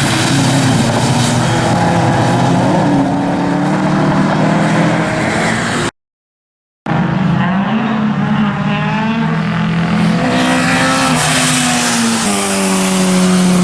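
Rally car engines running hard on a stage, their note rising and falling as they accelerate and lift, with a pitch drop near the end. The sound cuts out completely for under a second about six seconds in.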